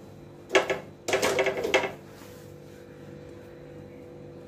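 Hands spreading wet grated potato over a terry towel: two short rustling scrapes in the first two seconds, then only a steady faint hum.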